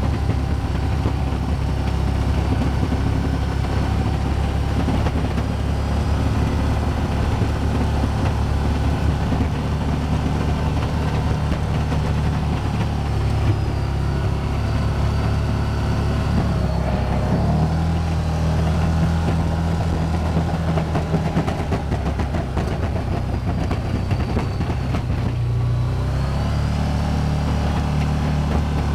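Can-Am Commander 1000 XT side-by-side's Rotax V-twin engine running steadily while plowing snow, its note shifting in pitch about halfway through and again near the end as the throttle changes.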